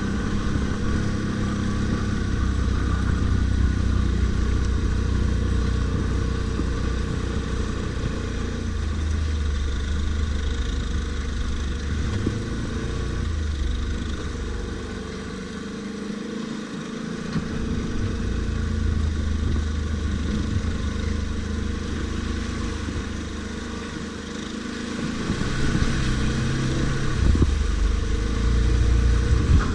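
ATV engine running under way off-road, its revs rising and falling as it is throttled on and off. It eases off about halfway through and picks up strongly again in the last few seconds.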